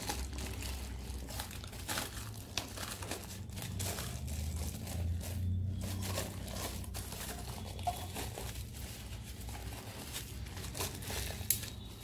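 Corrugated cardboard packing and clear plastic wrap being pulled apart and handled, unwrapping a small plastic bin: a continuous run of crinkling and rustling with many small crackles, and a sharper snap near the end.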